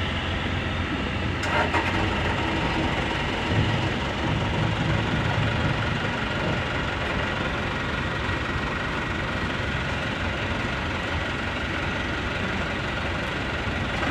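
Truck engine running steadily at idle, with a brief click about one and a half seconds in.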